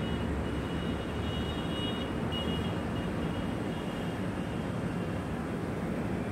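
Steady low rumble of outdoor background noise, like distant traffic, with a thin high whine during roughly the first three seconds.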